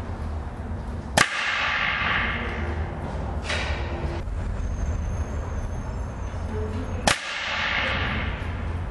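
Two shots from a 5.5 mm Mendoza Xtreme spring-piston air rifle, about six seconds apart. Each is a sharp crack followed by a ring that dies away over a second or so, with a fainter click between them.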